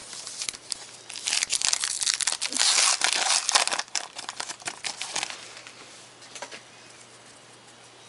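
Foil wrapper of a trading-card pack being torn open and crumpled, a dense crackling about a second in that thins to a few small clicks and rustles after about five seconds.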